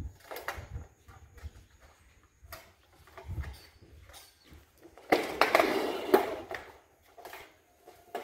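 Light clicks and knocks from handling and standing on corrugated metal roofing sheets, with a louder scraping rattle about five seconds in that lasts about a second and a half.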